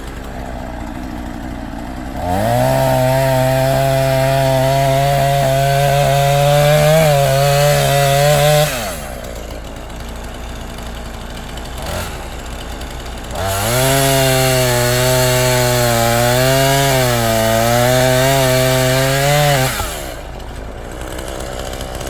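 Chainsaw running at full throttle through a large fir log in two cuts of about six seconds each, its pitch wavering and sagging as the chain bites. Between the cuts the engine sound drops to a lower, quieter hum.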